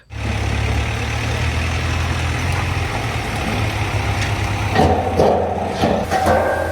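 Truck engine idling: a steady low rumble that starts abruptly, growing rougher and more clattery about five seconds in.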